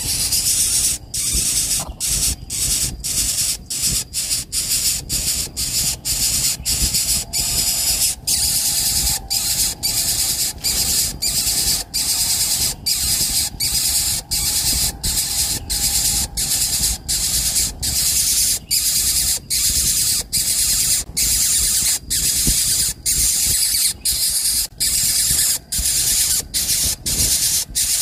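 Loud, steady high hiss of buzzing insects, typical of a cicada chorus, broken by short gaps about twice a second.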